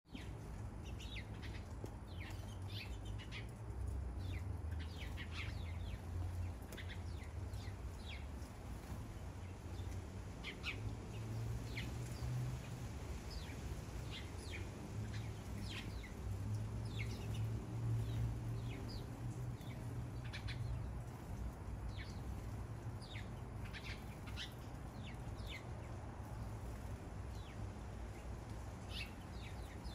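Backyard birds chirping, many short sharp calls overlapping and scattered all through, over a low steady rumble.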